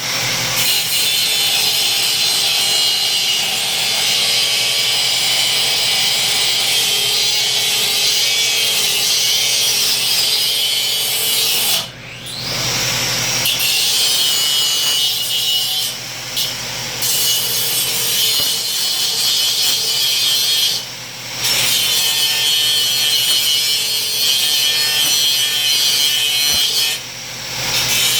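Bandsaw cutting metal hard enough to throw sparks: a steady, loud, high-pitched grinding hiss that eases off briefly a few times, about twelve, twenty-one and twenty-seven seconds in.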